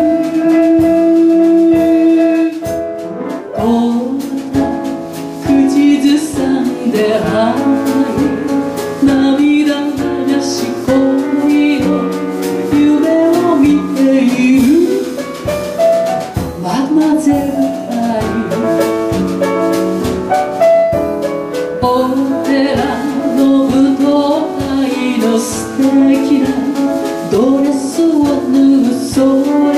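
A woman singing a chanson into a microphone with piano accompaniment, holding a long note at the start before the melody moves on.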